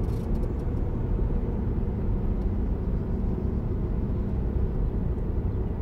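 Steady low rumble of a car driving on an asphalt road: engine and tyre noise heard from inside the cabin.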